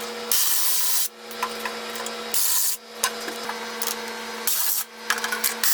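Four short scraping strokes on wood, each about half a second, with light knocks between them, over a steady low hum.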